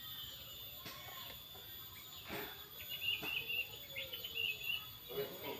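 A small bird chirping in short, rapid twitters in the second half, with a few faint knocks earlier.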